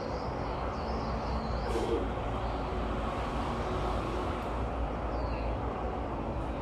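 Steady outdoor city ambience with a low rumble, like distant traffic, and a bird chirping a few times. A short sharp sound comes about two seconds in.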